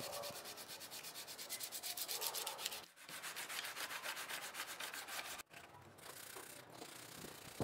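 Sandpaper rubbed by hand along a wooden knife handle in quick back-and-forth strokes, with two short breaks, quieter near the end.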